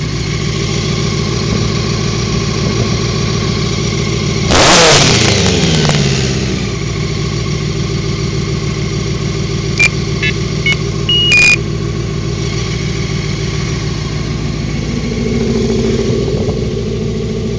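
1987 Honda Hurricane 600's inline-four engine idling, revved once sharply about four and a half seconds in and falling back to idle. A few short high-pitched chirps come about ten seconds in.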